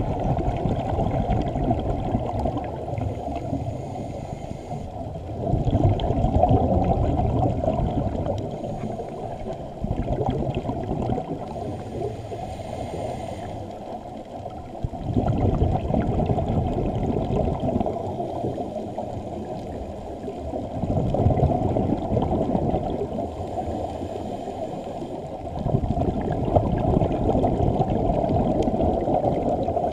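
Underwater recording of scuba regulator exhaust bubbles gurgling, swelling and easing in surges about every five seconds with each breath.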